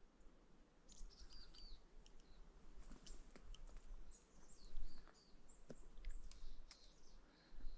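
Small birds chirping in short, high, slurred calls, with a few sharp ticks and a low rumble underneath.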